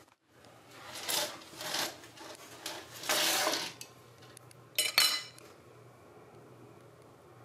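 A metal fork and spoon set down on a wooden table, clinking twice in quick succession with a short ring about five seconds in, after a few softer handling noises.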